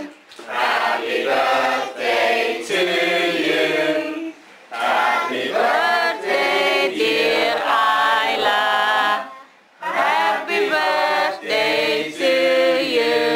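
Group of people singing a birthday song together to a child before the candles are blown out, the phrases broken by two short pauses about four and ten seconds in.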